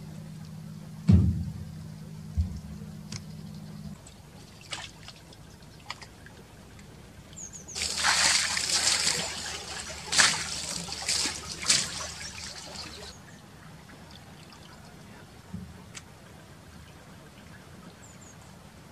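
Water splashing and sloshing across a boat's deck for about five seconds, loudest in a few gushes, as it is thrown over the deck to wash it. Before that, a heavy knock about a second in and a lighter one a second later, over a low hum that stops.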